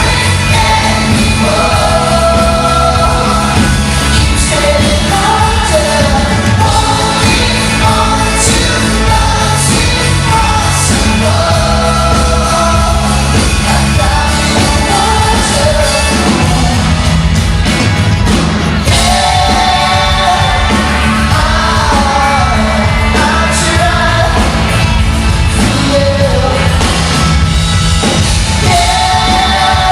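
Live pop-rock band playing at full volume, with a lead singer's voice carrying the melody over the band.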